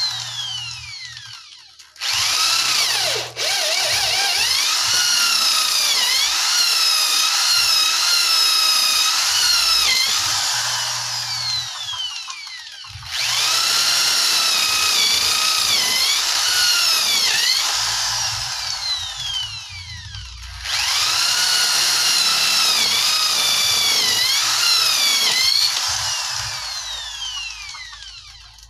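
Corded electric drill boring into a wooden plank. It runs in three long bursts with short stops between them, its high whine wavering in pitch as the bit loads in the wood. The motor winds down at the start and again near the end.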